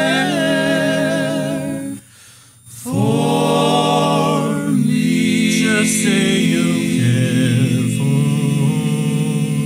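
Male vocal quartet singing a cappella in close harmony, holding the song's final drawn-out chords with vibrato. The voices break off for about a second roughly two seconds in, then return with long held chords that shift twice.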